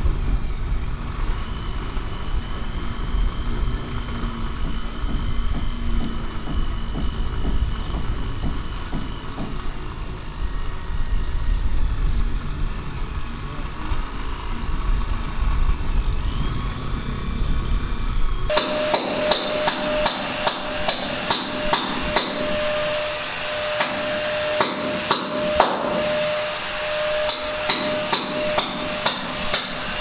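A steady low rumble, then from about halfway through, rapid, irregular sharp knocks over a steady high whine of a small tool.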